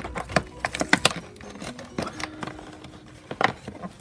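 Fingernails picking at tape stuck to a clear plastic packaging pouch, making irregular clicks, ticks and crinkles of plastic as the tape is worked loose.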